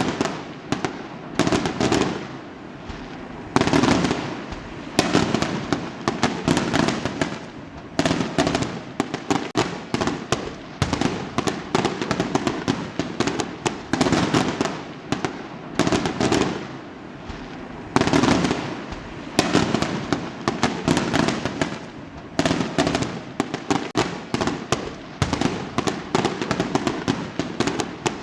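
Fireworks going off: a dense, continuous barrage of crackling bursts and bangs, in loud clusters every second or two with brief lulls between.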